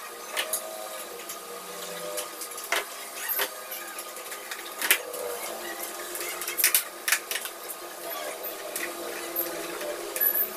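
Plastic clicks and knocks of a car instrument cluster being reassembled by hand, its clear lens and housing pressed and fitted together: an irregular series of sharp clicks over a faint steady hum.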